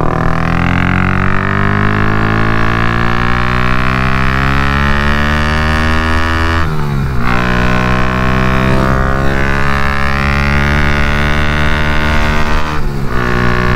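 Honda Grom's single-cylinder engine with a four-valve head, running hard at highway speed. Its pitch climbs slowly, dips briefly about halfway through and again near the end, with wind rushing over the microphone. The head makes a lot of mechanical chatter, though the valves have been checked and are good.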